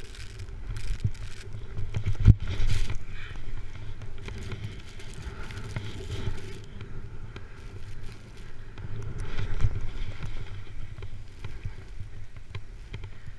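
A snowboard sliding and carving over snow, the board scraping louder in swells, with wind rumbling on the GoPro's microphone. A sharp knock about two seconds in.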